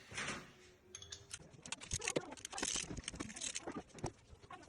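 Metal hand tools clicking and clinking against the bolts while the two bolts holding a clutch slave cylinder are undone. A quick, irregular run of sharp metallic clicks starts about a second in.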